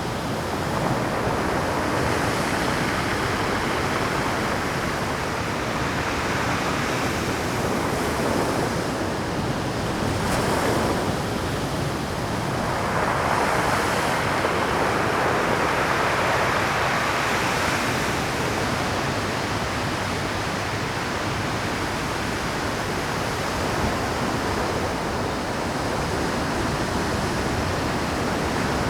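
Pacific surf breaking on a rocky shore at high tide: a continuous wash of waves, with swells of louder breakers about 13 to 18 seconds in and a sharp crash near 10 seconds.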